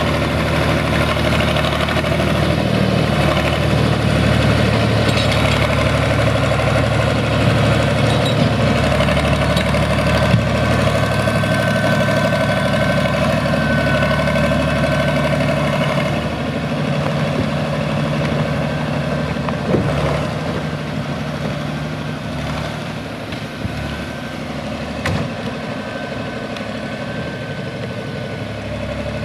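SAME Laser 110 tractor's air-cooled diesel engine running steadily while it drags a bundle of logs, growing quieter about sixteen seconds in as the tractor moves away. A thin high whine rises over it now and then.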